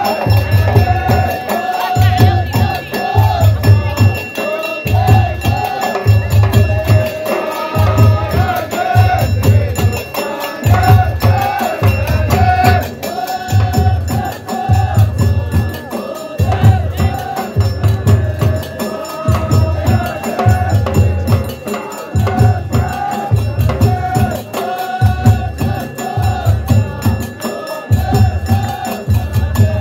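Ahwach music: a group of voices chanting a melody together over a steady rhythm of deep frame-drum beats.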